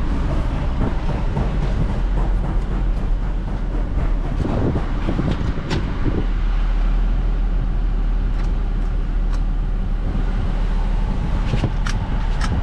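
Steady low rumble of a car on the move, road and engine noise heard from inside the cabin, with a few faint clicks.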